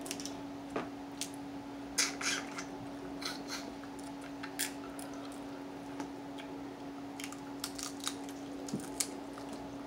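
Cooked crab shells being cracked, snapped and picked apart by hand while the meat is eaten: irregular sharp cracks and clicks, the loudest cluster about two seconds in, over a steady low hum.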